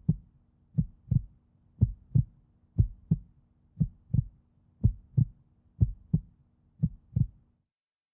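Heartbeat sound effect: low double thumps, lub-dub, repeating about once a second over a faint low hum, stopping shortly before the end.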